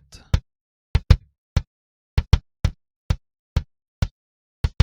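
Isolated live-recorded kick drum track played back, every hit normalized to the same level and gated so that nothing is heard between the hits. About a dozen even, punchy strikes in an uneven metal pattern, some in quick pairs.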